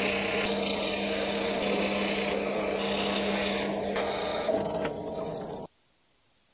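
Bench drill press running, its bit boring a ventilation hole through a plywood panel: a steady motor hum under a rough cutting rasp. The sound cuts off suddenly near the end.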